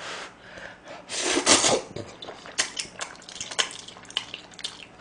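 A person slurping up a mouthful of stir-fried instant noodles about a second in, then chewing with quick short clicking mouth sounds.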